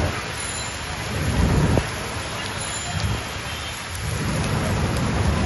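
Heavy rain pouring onto a paved street, a steady hiss, with a low rumble swelling about a second in.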